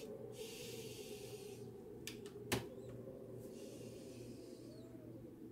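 A pipe smoker's breath, faint, with the pipe stem in his mouth: a long hiss, a few sharp clicks about two to two and a half seconds in, then another long hiss.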